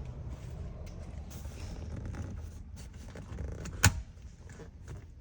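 Handling noises of a truck seat's headrest being worked loose: faint clicks and creaks over a steady low rumble, with one sharp click about four seconds in.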